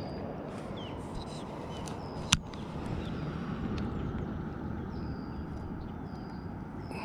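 Outdoor lake ambience: a steady low rumble with faint bird chirps, and one sharp knock about two seconds in.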